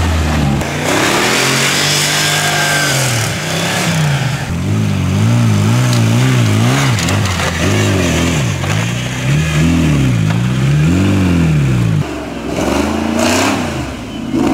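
An off-road trial vehicle's engine revving up and down again and again, the throttle worked in short bursts as the truck is driven up steep, muddy ground. About twelve seconds in, the sound drops and another engine revs.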